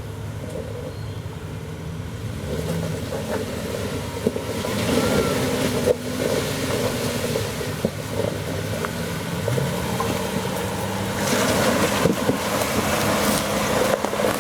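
Jeep Wrangler engine pulling under load at crawling speed, its pitch stepping up and down as the throttle is worked, with tyres grinding over rock and a few sharp knocks. The noise grows louder about four seconds in and again near the end.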